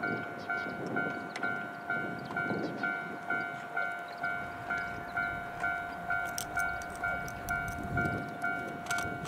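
Railway level-crossing warning bell ringing: a bright, bell-like ding struck about twice a second, each strike fading before the next, over a low rumble.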